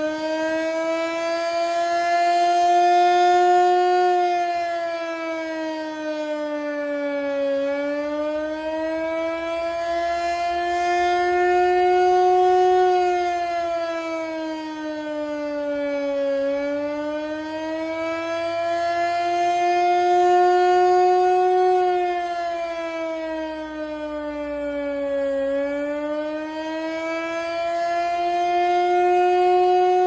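Federal Signal Model 5 mechanical fire siren sounding a wail. Its single tone slowly rises and falls, about every nine seconds, and grows louder as it rises.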